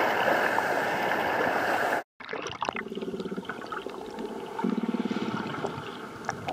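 Loud rushing surf and water noise that cuts off abruptly about two seconds in. It gives way to underwater sound: scattered sharp clicks and two short buzzing pulse trains from common bottlenose dolphins echolocating while they hunt.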